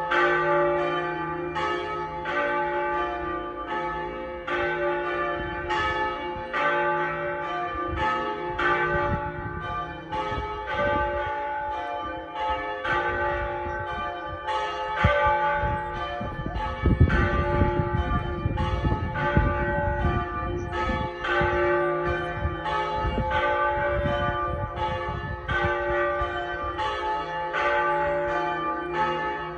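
Church bells being rung in sequence, with fewer than half of the ring's bells in use: a steady, even run of strokes, about two a second. A low rumbling noise comes in about halfway through and lasts several seconds.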